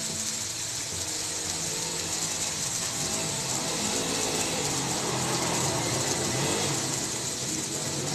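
Mixed vegetables sizzling steadily in hot coconut oil in a pan, the sauté stage before they start to give up their water.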